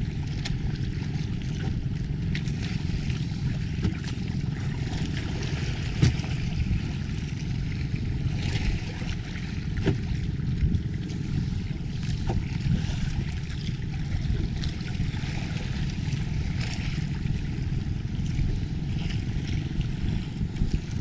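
Wind buffeting the microphone over waves slapping against the hull of a small outrigger boat on a choppy sea, a steady rushing noise with a few light knocks.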